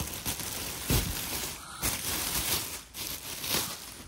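Plastic packaging bag crinkling and rustling as hands pull at it and the cloth wrap around a subwoofer in its cardboard box, with a soft thump about a second in.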